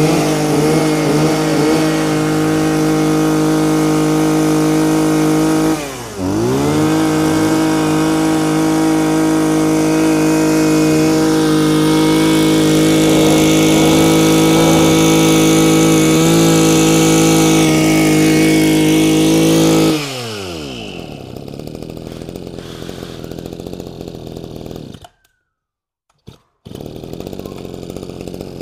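Mitsubishi TL23 two-stroke brush cutter engine held at high revs, eased off for a moment about six seconds in and opened up again. About twenty seconds in the throttle is released and the revs fall to idle; the sound cuts out briefly a few seconds later, then the idle comes back.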